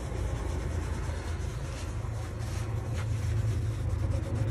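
A cloth rag rubbing over the dyed leather of a wallet to burnish it, with faint scuffing strokes, over a steady low hum.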